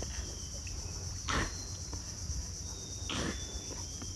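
Steady high-pitched insect chorus, with two soft splashes of water from a man swimming, about a second in and again about three seconds in.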